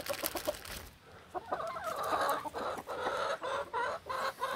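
Backyard chickens clucking in a run of short, repeated calls that start about a second in.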